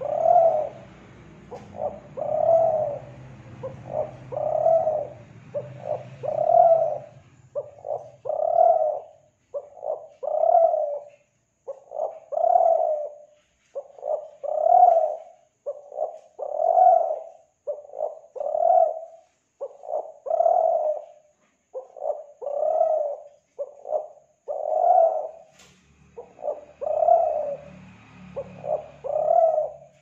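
Kelantan-type spotted dove (tekukur) cooing its repeated song: a few short notes leading into a longer coo, phrase after phrase about every two seconds.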